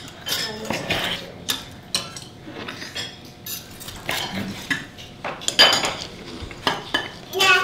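Knife and fork cutting a cooked steak on a wooden cutting board: irregular scrapes and clinks of metal against wood.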